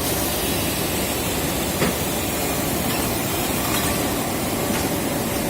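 Cable production machinery running: a steady, even mechanical din with a few faint clicks, as the automatic cable coiling and wrapping machine works.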